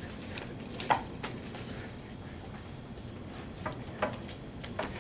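Papers being handled and set down on a lectern: a few scattered light knocks and clicks, the sharpest about a second in, over steady room noise.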